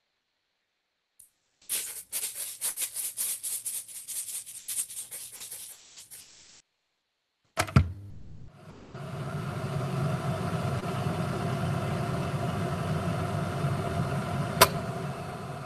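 A run of sound effects from a guess-the-sound listening game. First comes about five seconds of quick, irregular rattling clicks, then a single thump, then a steady hum with one sharp click near the end.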